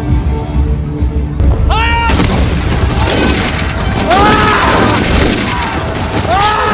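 Music cuts off about a second and a half in, and a loud crowd tumult takes over: a dense din with repeated bangs and several long shouted calls that rise and fall in pitch.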